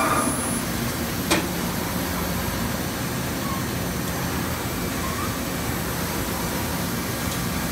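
Cincinnati FTV850-2500 vertical machining centre running, a steady machine hum while its spindle head travels upward, with one sharp click about a second and a half in.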